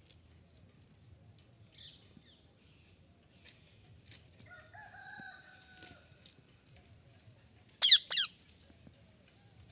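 Ring-necked parakeet giving two loud, short, shrill screeches in quick succession about eight seconds in. A fainter drawn-out call is heard in the middle.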